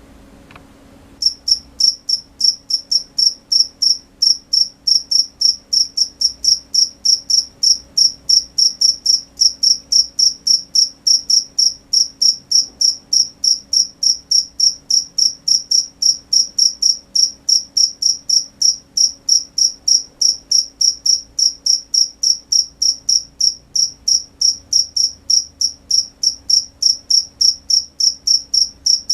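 Cricket chirping in a steady, even rhythm of high-pitched chirps, about three a second, starting abruptly about a second in, over a faint low hum.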